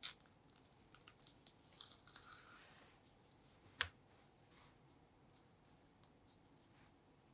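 Banana peel being pulled back in strips: a soft tearing rustle about two seconds in, with small clicks around it and one sharp click near the middle.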